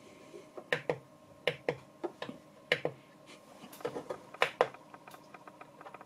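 Sharp clicks of the controls on a home-built bench power supply's control module being worked by hand to change the output voltage: about a dozen clicks, many in quick pairs, with a louder pair about four and a half seconds in.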